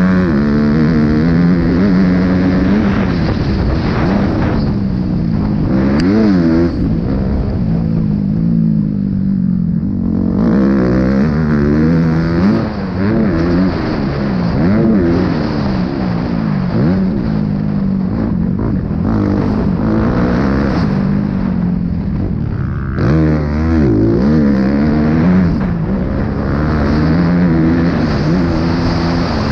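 Motocross dirt bike engine revving up and dropping off again and again as the rider accelerates, shifts and backs off around the track, heard from the rider's own point of view. There is a sharp drop and re-rise in engine pitch about two-thirds of the way through.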